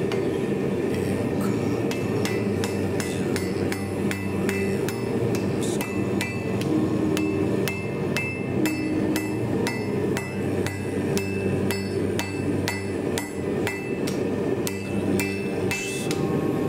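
Hand hammer striking red-hot steel on an anvil in a steady run of blows, each with a short metallic ring, as a knife blade is hand-forged.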